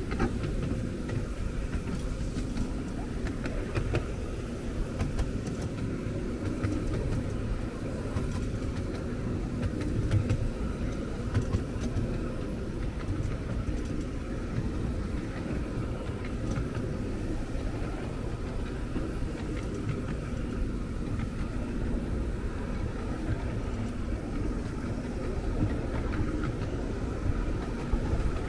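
Miniature steam railway train running along its track: a steady low rumble of wheels on rail with frequent small clicks.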